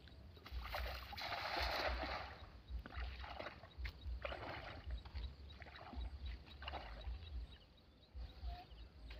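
A cast net splashing down onto shallow water, a long rushing splash starting about half a second in, followed by repeated short sloshing splashes as the man wades and hauls the net back through knee-deep water.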